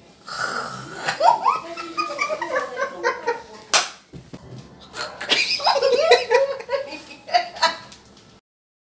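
Laughter, with one sharp slap or smack about four seconds in; the sound cuts off suddenly near the end.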